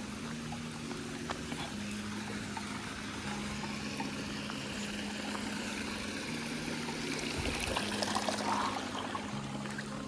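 Water trickling and pouring in a small irrigation channel, a steady splashing hiss that grows louder about seven to nine seconds in.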